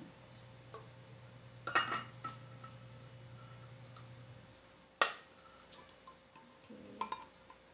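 Handheld metal can opener being fitted onto and clamped over a tin can of evaporated milk: a few sharp metallic clicks and clinks, the loudest about five seconds in.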